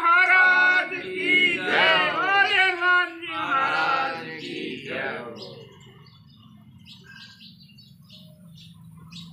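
A group of men singing a Hindu aarti hymn together, held, wavering sung phrases that end about five and a half seconds in. After that, faint bird chirps.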